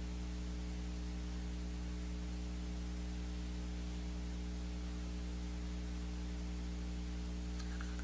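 Steady electrical mains hum with a constant hiss behind it.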